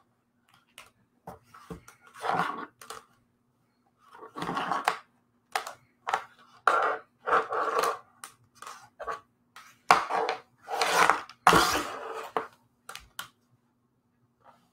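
Handling noise: a series of short clatters and scrapes of hard objects being moved about, with a faint steady electrical hum under it.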